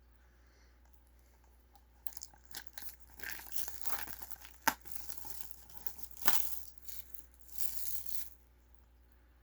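Packaging being torn open and crinkled by hand, in irregular rustling spurts with two sharp snaps in the middle, starting about two seconds in and stopping about a second before the end.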